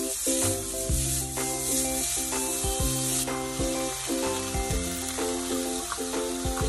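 Sliced pork, onion and green pepper sizzling in a frying pan as they are stir-fried; the sizzle eases a little about three seconds in, as mung bean sprouts are tipped into the pan. Background music with a steady bass line plays throughout.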